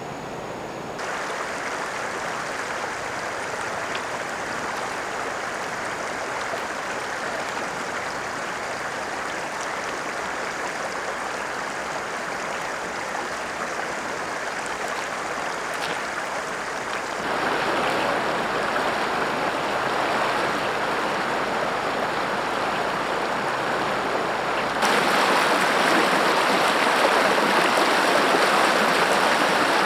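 Shallow river water rushing and rippling over rocks, a steady noise with no pauses. It steps louder twice, a little past halfway and again near the end.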